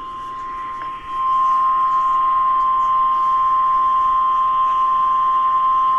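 Weather radio warning alarm tone: a steady single tone near 1 kHz (the 1050 Hz alert tone) that jumps much louder about a second in. It announces an incoming flash flood warning.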